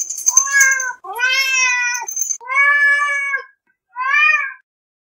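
Domestic cat meowing four times in a row, drawn-out meows with the last one shorter.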